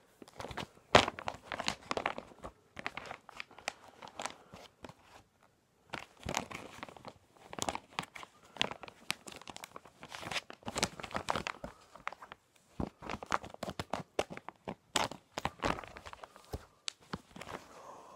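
Plastic packaging crinkling and rustling in irregular bursts as it is handled and torn open, with a short pause about five seconds in.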